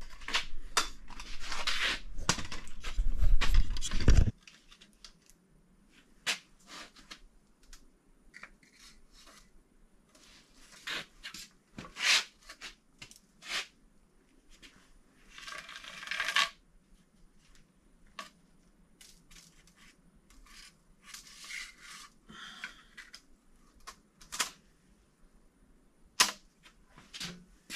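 Handling of a new steel head gasket as it is laid onto an engine block: scattered light metallic clicks and taps with short crinkly rustles. Over the first four seconds a louder rustle and rumble as the camera is carried.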